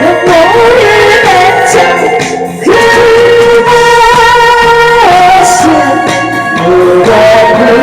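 A woman singing with long held notes over a loud backing track with a steady beat.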